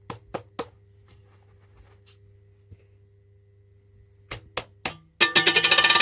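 A few sharp clicks over a low steady hum, three near the start and three more about four and a half seconds in, then a loud rushing noise with fast fine ticking that starts abruptly about five seconds in.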